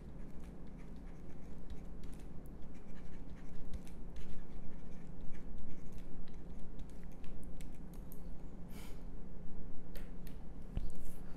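A stylus writing by hand on a tablet: many short scratching strokes and light taps as a two-word phrase is written out, over a faint steady hum.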